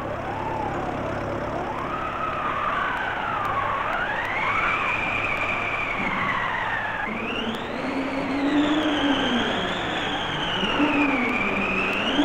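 Howling blizzard wind: whistling tones that rise and fall slowly over a steady rush, with a second, lower moaning tone joining about halfway through.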